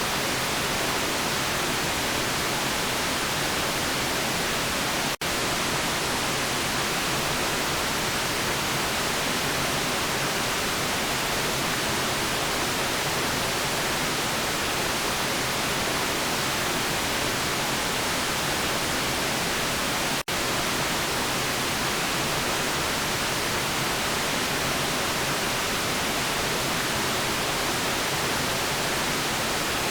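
Steady electronic white noise, an even featureless hiss spread across the whole range, with two split-second dropouts about five and twenty seconds in.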